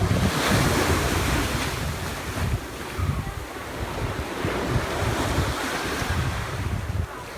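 Ocean surf washing onto a beach, with wind buffeting the microphone. A wave's wash swells at the start and fades over the next couple of seconds.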